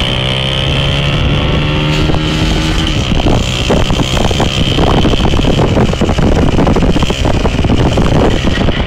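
Small motorcycle engine running under throttle during a wheelie, its pitch rising in the first few seconds. From about three seconds in, heavy wind buffeting on the microphone largely covers it.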